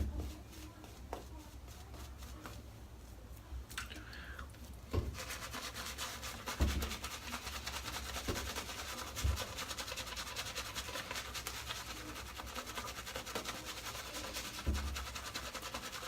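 A Wolf Whiskers custom shaving brush lathering shaving soap on the face, the bristles making a fast, steady scratchy rubbing. It is quiet at first and the brushing starts about five seconds in.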